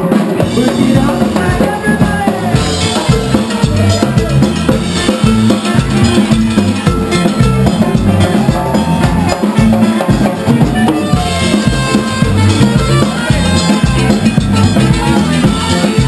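A live band playing loud: drum kit and electric bass carry a steady beat, with a trumpet playing a melody line over the top.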